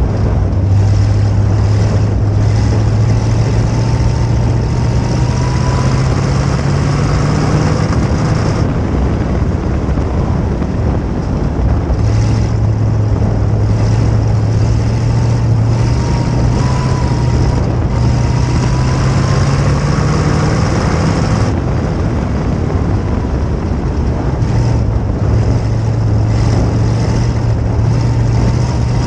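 Sprint car's V8 engine heard on board at high throttle, its note climbing slowly down each straight. The engine note drops away twice, about nine and twenty-two seconds in, as the driver lifts for the turns of the dirt oval, then builds again.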